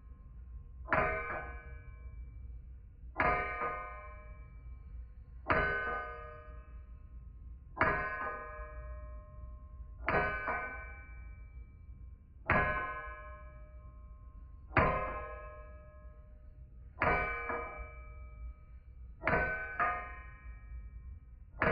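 Hammer blows on metal, one about every two seconds, each strike ringing on with a bright metallic tone for over a second. A few blows land as a quick double hit.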